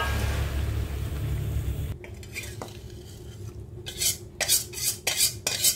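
A wok of chicken simmering in sweet soy sauce on the stove gives a steady low rumble for about two seconds. Then a run of quick scrapes, about two or three a second, as fried chillies and shallots are scraped out of a metal pan into a stone mortar.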